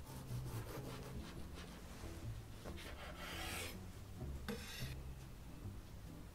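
Chef's knife sawing back and forth through a soft chocolate sponge roll cake on a wooden cutting board: a run of quick rasping strokes, about five a second, then two longer scrapes as the cut finishes.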